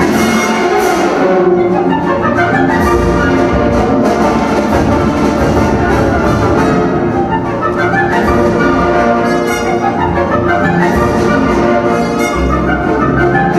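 Orchestral music led by brass, with rising runs that sweep upward again and again.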